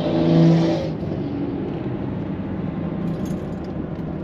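Steady engine and road noise of a car on the move, heard from inside the cabin, with a brief louder swell of engine tone and hiss in the first second.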